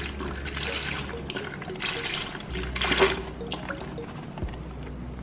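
Coconut milk pouring from a carton into a plastic bucket onto sugar, trickling and splashing unevenly, with a stronger gush about three seconds in.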